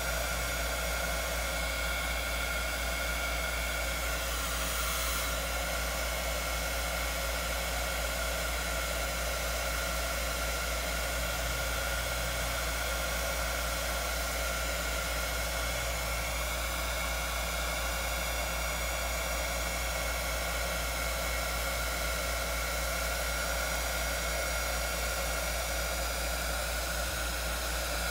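Handheld heat gun blowing hot air steadily over wet epoxy resin: an even rush of air with a steady whine from its fan motor.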